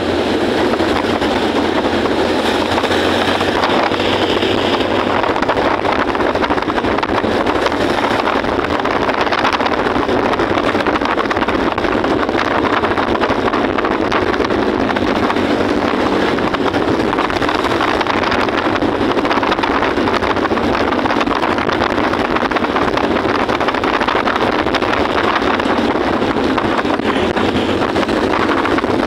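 Steady wind and engine noise from a motorcycle being ridden through traffic, with wind buffeting the microphone.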